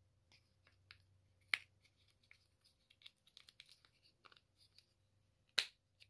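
Faint small plastic clicks and scrapes as an AA battery is worked into a clear plastic D-cell adapter sleeve, with one sharp click about a second and a half in and a louder snap near the end as the battery seats.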